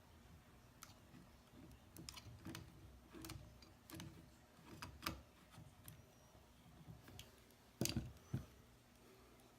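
Small hard clicks and knocks from rifle parts being handled during cleaning and reassembly, a few a second, with two louder knocks near the end.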